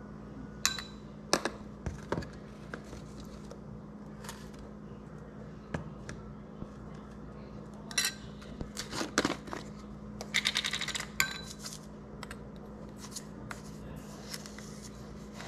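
Kitchen utensils and containers clinking, clicking and knocking in short separate strikes, with a quick rattle lasting about a second about two-thirds of the way through, over a steady low hum.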